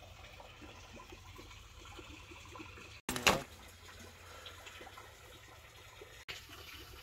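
Water splashing and trickling over a landed carp on a wet unhooking mat, with one short louder burst of noise about three seconds in.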